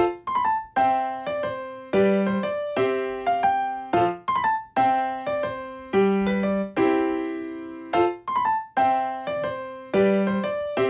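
Background music: a light piano tune of short, decaying notes in a phrase that repeats about every two seconds.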